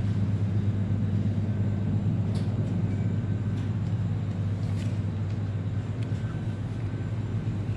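Steady low hum of a supermarket's chiller cabinets and ventilation, with a few faint clicks.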